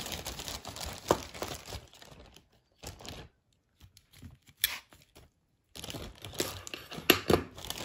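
Thin plastic takeout container crinkling as it is handled, with a few sharp clicks from metal tongs among the vegetables, the loudest about a second in and near the end; a quieter lull in the middle.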